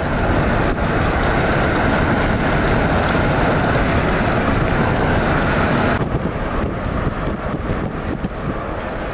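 Steady rolling rumble and rush of vehicle motion, a car driven alongside a moving freight train of tank cars. The higher hiss drops away sharply about six seconds in, leaving a rougher, fluttering rumble.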